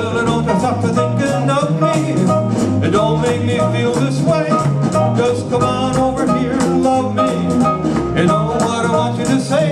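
Band music with a steady drum beat and a walking bass line: the instrumental part of a rock-and-roll song, with no lead vocal.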